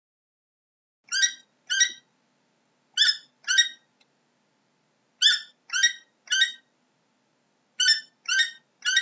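An animal calling: ten short high-pitched calls in groups, two pairs followed by two runs of three, with pauses between the groups.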